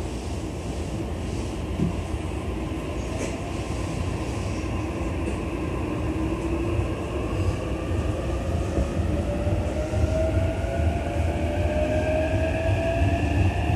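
Running sound inside a JR East E233-3000 series electric train pulling away from a station: a low rumble, with the traction motors' whine rising steadily in pitch from about six seconds in as it gathers speed.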